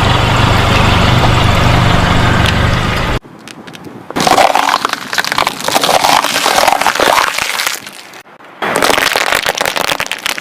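A car's tyres rolling over and crushing crunchy objects: dense crackling and snapping. For the first three seconds a steady low engine hum runs beneath it, then the crunching comes in two more stretches that start and stop abruptly.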